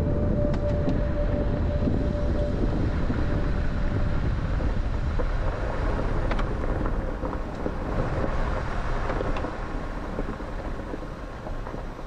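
4WD SUV driving on a rough unpaved mountain road: a steady rumble of tyres and engine with a few scattered clicks and rattles, easing off near the end.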